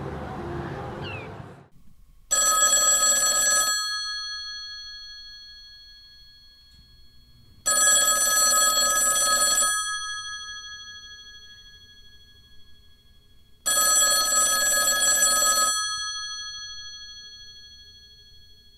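Old-style telephone bell ringing three times, each ring lasting one and a half to two seconds, with the bell tone dying away slowly after each. Wind noise fades out in the first couple of seconds.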